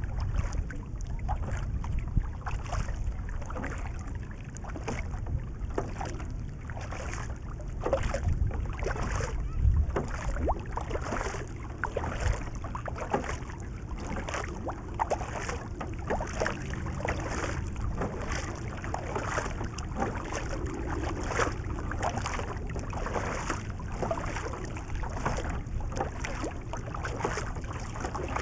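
Kayak paddle strokes: the blades dip and pull through lake water in a steady alternating rhythm, with a short splash at each stroke. Wind buffets the deck-mounted microphone in a low rumble underneath.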